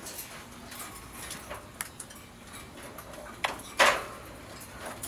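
Red-shouldered macaw making short clicking and smacking sounds, its imitation of a kiss, with the loudest smack about four seconds in.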